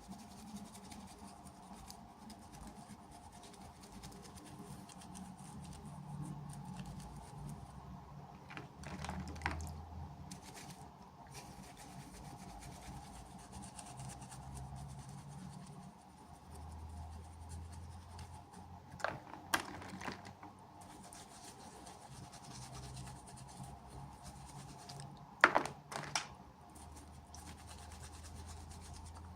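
Hands scratching and rubbing at small toy packaging while unboxing, with a few sharp clicks, the loudest about three quarters of the way through, over a faint steady hum.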